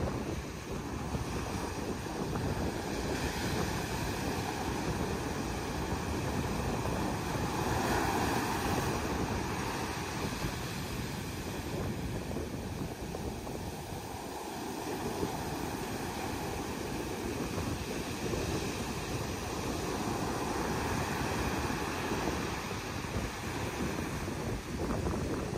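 Atlantic surf breaking and washing up a sandy beach in rough water ahead of a storm, with wind buffeting the microphone. The wash swells about 8 seconds in and again near 20 seconds, easing in between.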